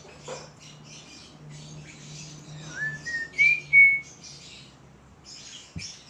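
Rosy-faced lovebird chattering in short, scratchy, high chirps, with a few clear whistled notes stepping upward about three seconds in, the loudest sound. A steady low hum runs underneath.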